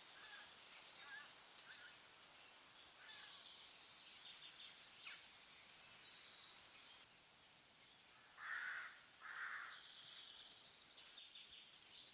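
Forest ambience with birds chirping and whistling over a soft hiss, and two louder calls in quick succession past the middle.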